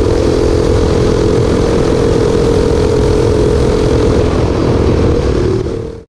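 Tillotson 212cc single-cylinder engine on a mini bike, governor removed and a newly tuned Tillotson TCT carburetor fitted, running at a steady speed under load, with wind noise on the microphone. The sound fades out near the end.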